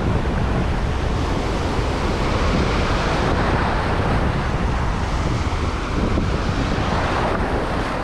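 Surf washing over a rocky reef shelf close by, with wind buffeting the microphone in a steady low rumble.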